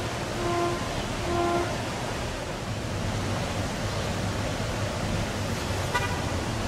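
Short toots of a cog railway railcar's horn, two in the first second and a half, over a steady rushing noise.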